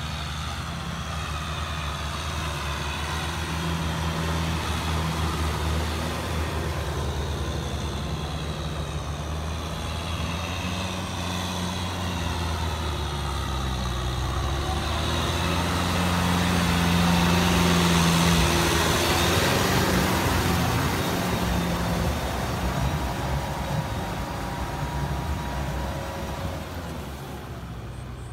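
Kubota farm tractor's diesel engine running steadily under load as the tractor pushes mud with its front blade through a flooded paddy. The engine grows louder toward the middle as it comes close, then fades near the end.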